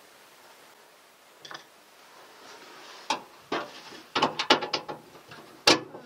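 Sharp clicks and clanks of hands and tools working on the drum roller hardware inside a GE Profile dryer cabinet during a drum roller replacement. They start about halfway in, with a quick run of clicks and the loudest clank near the end.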